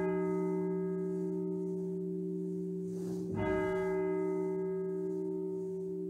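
A single church bell tolling slowly, struck about once every four seconds: the previous stroke is still ringing and humming at the start, and a fresh stroke comes about three and a half seconds in. A memorial toll for the dead.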